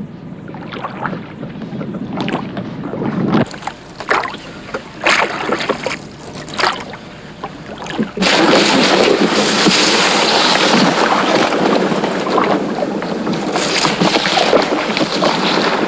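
Wooden rowboat being rowed across marsh water: scattered oar splashes and knocks. About eight seconds in, a loud, steady rushing noise takes over.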